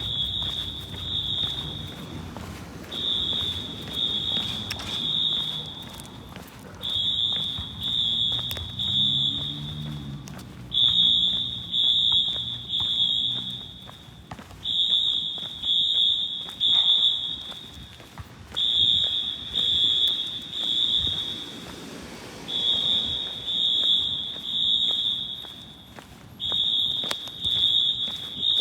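Synchronized Wheelock AS fire alarm horns sounding the temporal-3 evacuation pattern: three high beeps, then a pause, repeating about every four seconds, echoing through a parking garage.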